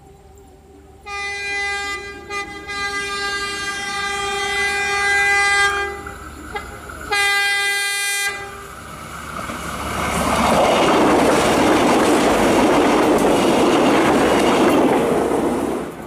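KAI multiple-unit passenger train sounding a multi-tone horn: one long blast of about five seconds, then a short second blast. The train then runs past at speed, its wheels rushing and clacking over the rails until the sound drops off sharply at the end.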